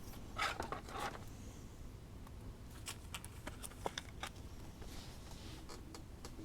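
Faint scattered rustles, light scrapes and small taps of trading cards being handled and slid against one another.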